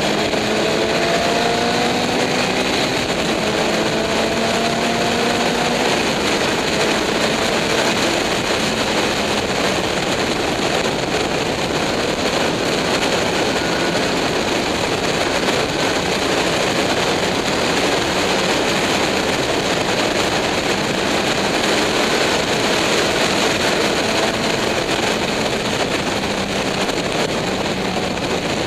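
Racing car engine running hard under heavy wind noise on board. Its pitch climbs steadily over the first several seconds as the car accelerates, and climbs again more faintly later on.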